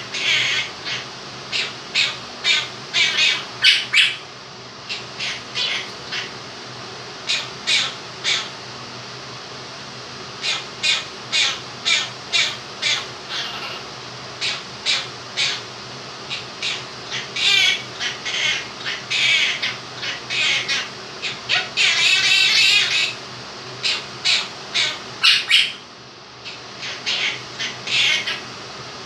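Quaker parrot squawking and chattering in runs of short, repeated calls, with one longer drawn-out call past the middle, over the steady hum of an electric fan.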